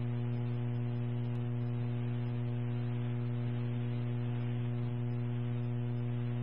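Steady electrical mains hum with a ladder of evenly spaced higher overtones over faint hiss, carried on a radio dispatch channel recording before any voice comes on.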